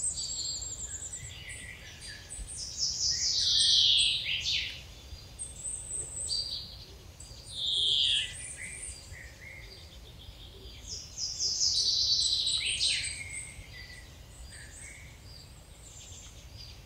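Songbirds singing: quick high phrases a second or two long, several sliding down in pitch, the loudest about four, eight and twelve seconds in, over a faint low steady rumble.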